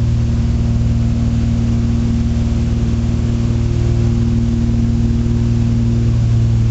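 Britten-Norman Trislander's wing-mounted six-cylinder Lycoming piston engine and propeller in flight, heard from inside the cabin right beside the engine. It makes a loud, steady drone with a strong low hum and higher overtones, over a constant rush of air.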